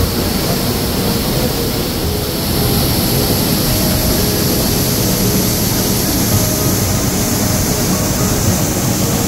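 Giessbach Falls, a high cascading waterfall, pouring close by: a loud, steady rush of falling water and spray, getting a little louder about two and a half seconds in.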